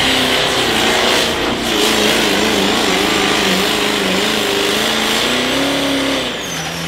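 Ford Super Duty pickup's Power Stroke turbo-diesel V8 at full power pulling a weight-transfer sled, its note wavering up and down, with a high whistle above it. Near the end the revs climb briefly, then fall away as the truck comes off the throttle.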